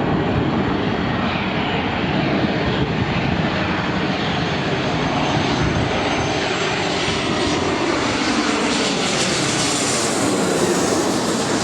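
Airliner passing low overhead on its landing approach, a loud, steady engine noise whose tone shifts and bends as it passes over in the second half.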